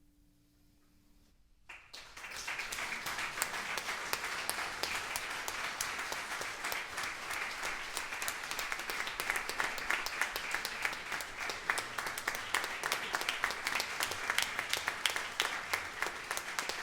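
A faint held note stops, and about two seconds in an audience breaks into steady applause that keeps going.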